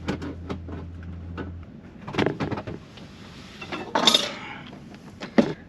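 Kitchen gear clattering and knocking as an air fryer is pulled out and set down, in clusters about two seconds in, about four seconds in and near the end. A low steady hum stops about a second and a half in.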